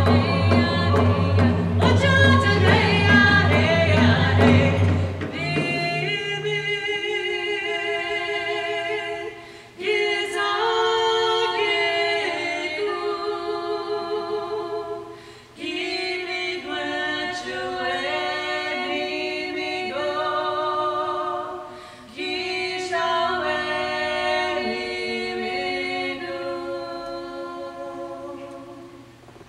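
Two women singing a Native American song together, their voices rising and falling in long phrases. Hand drums beat steadily under the voices for the first five seconds or so, then the singing carries on without them and fades out near the end.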